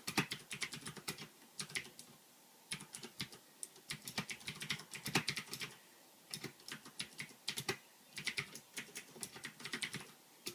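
Typing on a mechanical keyboard with Cherry MX Blue switches: quick runs of sharp, clicky keystrokes in bursts, with short pauses between them.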